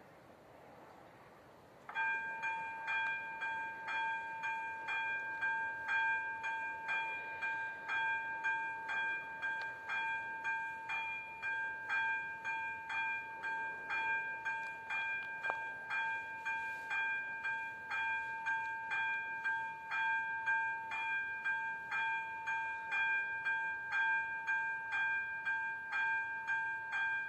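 Railway level-crossing electronic warning bell starting suddenly about two seconds in, then ringing steadily with quick, evenly repeated dings. This is the signal that a train is approaching and the crossing is closing.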